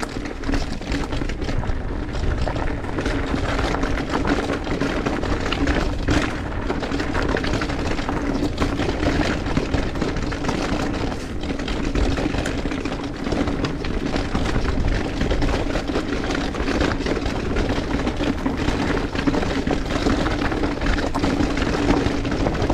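Mountain bike riding down a rough trail: tyres rolling and skidding over dirt and rock, the frame and chain clattering with many small knocks, over wind noise and a steady hum.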